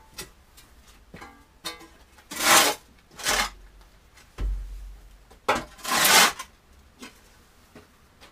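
Long-handled tool scraping and dragging wood-shaving bedding across a coop floor: three loud scraping strokes, two close together about two and a half seconds in and a longer one around six seconds, with a low thump between them. Light plucked-string music plays underneath.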